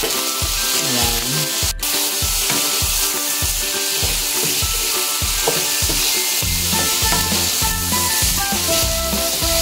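Browned pork sizzling in hot oil as dark soy sauce is added, a steady frying hiss, over background music with a steady beat.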